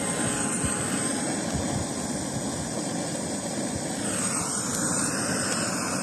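Handheld gas torch flame hissing steadily as it burns plastic-coated ribbon-cable scraps in a metal can. The hiss shifts in tone about four seconds in.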